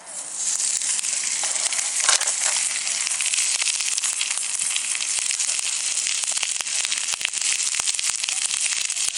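Food frying in a hot pan: a sizzle that starts suddenly and then runs steadily, full of small spitting pops.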